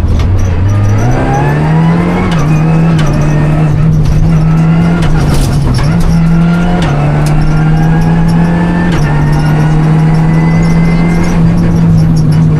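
Renault Clio Rally5's engine heard from inside the car at full stage pace. The revs drop low at the start, then rise quickly as it accelerates out of a slow corner. For the rest of the time the engine is held high, with a few brief dips in pitch.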